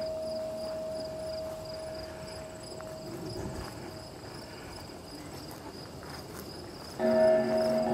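Crickets chirping in a steady, regular rhythm. A sustained ringing tone fades out over the first few seconds, and a chord of low sustained musical tones comes in abruptly near the end.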